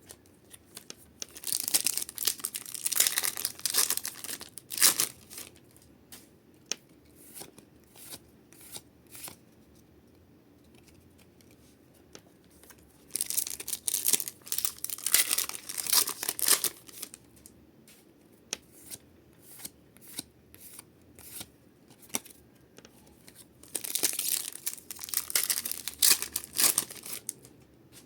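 Foil Pokémon card booster packs being torn open and crinkled, in three bursts, with the cards then flicked and slid through the hands in quick clicks between them.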